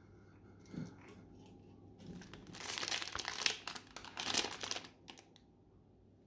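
Crinkling and rustling of something being handled, in two louder stretches between about two and five seconds in, after a single faint click about a second in.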